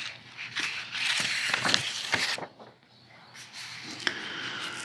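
Paper rustling as printed pages are handled and swapped, a noisy rustle with a few small clicks from about one second in, then fainter handling.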